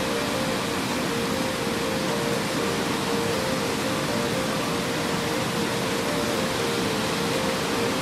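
Waterfall's steady rushing hiss, with a few faint held notes of soft relaxation music underneath.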